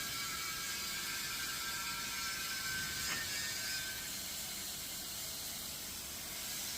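TIG (argon) welding arc burning steadily with a continuous hiss as the torch is weaved along the joint.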